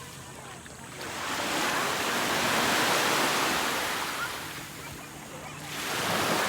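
Sea waves washing onto a beach, the surf swelling and fading twice: one surge builds about a second in and dies away, and a second begins near the end.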